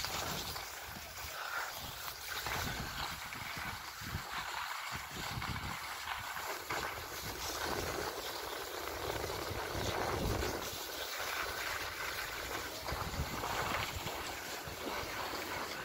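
Skis sliding over groomed snow, a steady noisy scrape that swells and eases, with wind rumbling on the microphone.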